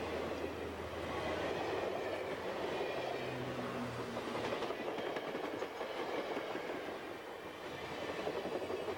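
Steady running noise of a vehicle in motion.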